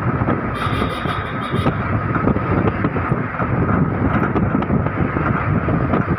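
Fire vehicle driving along a road: a steady rumble of engine and road noise, heard from on board.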